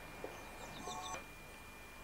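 Faint bird calls: a few short, high chirps and a brief lower call, clustered about half a second to a second in.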